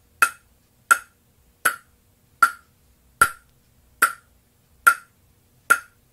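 Table tennis ball bounced on a bare Butterfly Harimoto carbon blade with no rubbers on it, a little harder than a gentle test: eight sharp knocks at an even pace, a little under a second apart. The blade is being bounce-tested so its pitch can be heard and compared.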